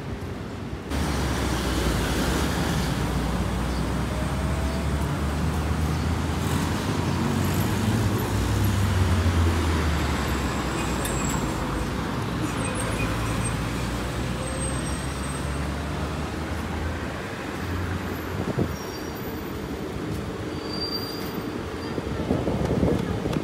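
City road traffic: a steady rumble of passing cars, stepping up about a second in and swelling a little before the middle.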